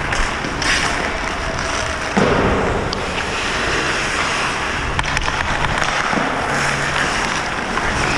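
Ice hockey skate blades scraping and carving across the ice, heard close up from a helmet camera, with a few sharp stick clacks and a heavier thump about two seconds in.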